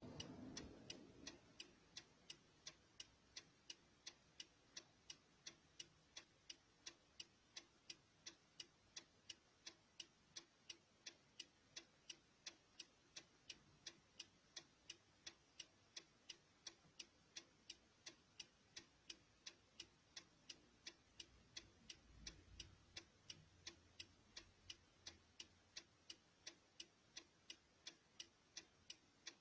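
Car direction indicators (turn signals) ticking at an even rhythm, about two to three ticks a second.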